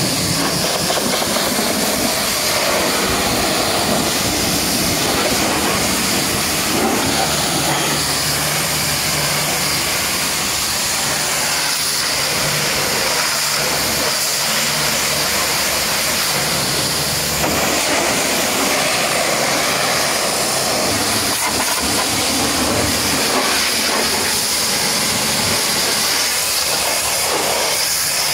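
High-pressure water jet from a pressure washer spraying onto a truck's painted metal cab and fuel tank: a steady, loud hiss of spray, with a low steady hum underneath.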